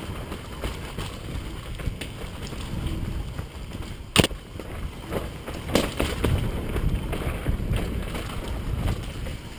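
Mountain bike descending a dirt trail: wind rushing over the camera microphone and a low rumble of tyres over dirt and roots, with one sharp clack about four seconds in and a smaller one near six seconds.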